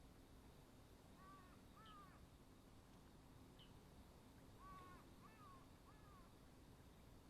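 Faint crow caws: two near the start and a run of three about two-thirds of the way through, with an occasional tiny high chirp from a small bird over quiet outdoor background.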